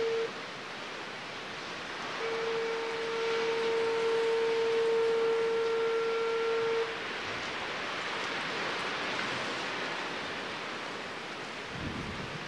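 A horn blowing a long, steady single-pitched blast of about four and a half seconds, after an earlier blast cuts off right at the start. A steady rushing noise runs underneath.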